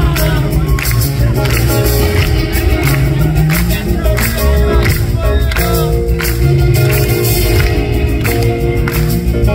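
Live band playing a funk groove: held keyboard chords over bass and drums, loud and steady.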